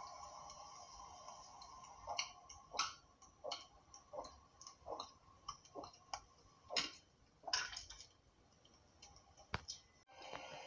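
A cat retching: a run of short, sharp gagging heaves, about two a second, as it brings up frothy yellow bile.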